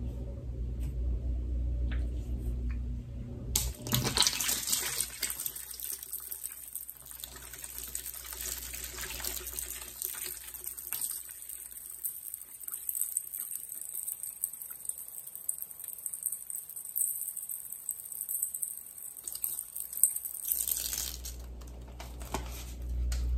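Water running from a tap into a bucket, turned on about four seconds in and shut off near the end.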